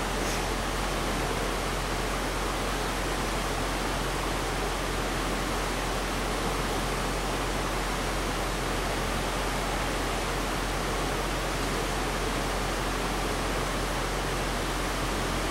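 Flowing stream water rushing steadily over a rocky riffle, an even hiss with no change.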